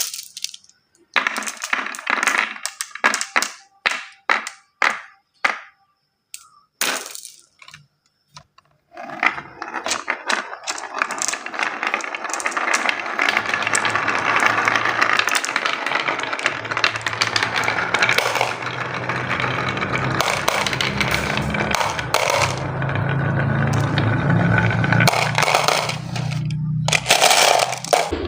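Marbles rolling and clattering down a HABA wooden slope marble run: a string of separate short rattles for the first several seconds, then a continuous clattering roll with a low steady hum underneath through the second half.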